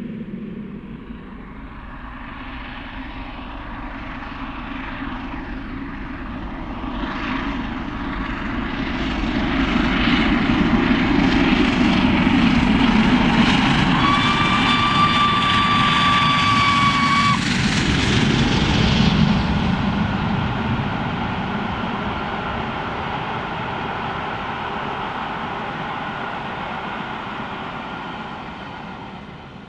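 Peppercorn A1 Pacific steam locomotive 60163 Tornado, a three-cylinder engine, working hard uphill with a heavy 13-coach train. Its exhaust beats grow louder as it approaches, are loudest as it passes, then fade into the rumble of the coaches rolling away. About midway a steady whistle sounds for about three seconds.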